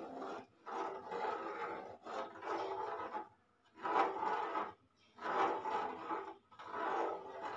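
Metal spoon scraping and rubbing against the inside of a pot while stirring milk, in repeated strokes about a second long with short pauses between them.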